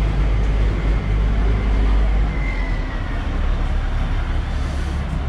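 A motor vehicle's engine running close by, a low steady rumble over general street traffic noise.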